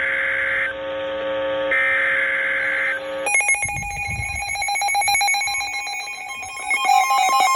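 Emergency Alert System header data bursts: harsh, raspy digital bursts about a second long with short gaps, the last ending about three seconds in. The EAS attention tone then starts, a steady pair of high pitches with a rapid flutter.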